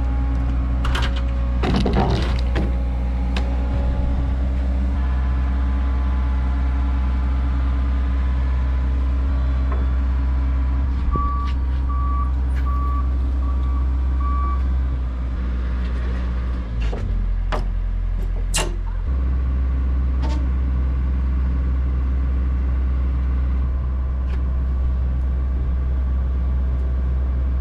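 A heavy machine's engine running steadily, with five short backup-alarm beeps a little before the middle. Its engine note shifts briefly about two thirds through, and a few knocks come near the start and again at that point.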